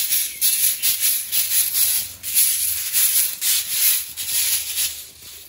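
Soft grass broom sweeping dust and grit across a concrete floor in quick strokes, about three a second, trailing off near the end.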